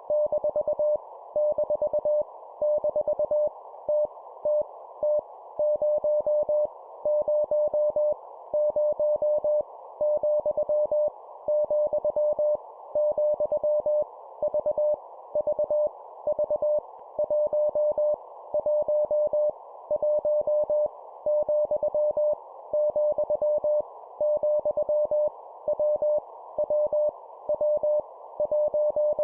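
Morse code sent at 20 words per minute as a keyed single-pitch tone in dots and dashes, over a steady hiss. The characters are random letters, numbers and punctuation, each sent three times, with short gaps between groups.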